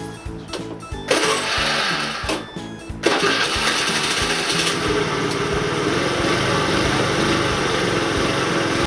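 Honda Today AF61 50 cc four-stroke scooter engine starting about a second in, faltering briefly, then idling steadily from about three seconds as it warms up before an oil change. Background music plays underneath.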